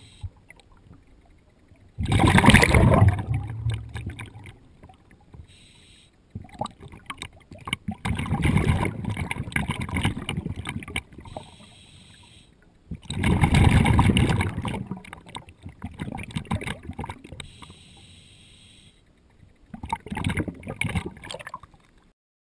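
Scuba diver breathing through a regulator underwater: loud bursts of exhaled bubbles about every five or six seconds, with a fainter hiss between them. The sound cuts off suddenly near the end.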